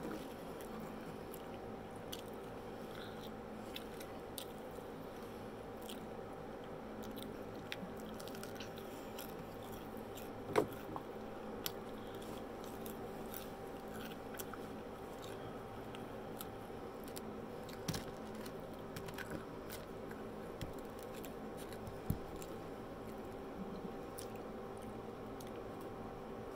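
A person chewing and biting fried onion rings close to the microphone, with scattered short crunches and mouth clicks, one louder click about ten seconds in, over a steady background hum.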